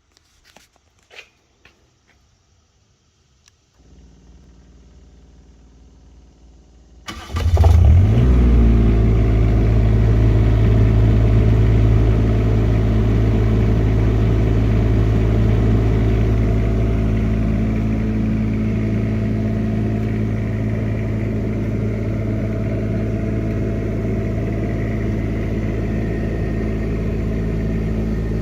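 Onan 7.5K diesel generator starting up. A few clicks, then a low quiet hum from about four seconds in; about seven seconds in the diesel fires, climbs quickly to speed and settles into a steady run.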